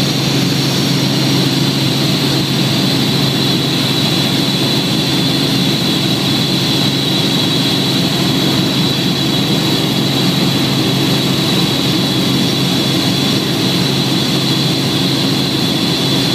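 Helicopter in cruising flight heard from inside the cabin: a steady, loud drone of rotor and engine with a constant high whine over it.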